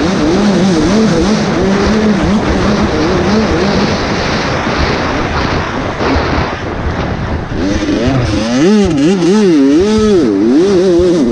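Dirt bike engine heard from the rider's helmet camera as the bike is ridden hard on a dirt trail, its pitch wavering steadily at first. In the second half the revs rise and fall rapidly over and over, over a rush of wind and track noise.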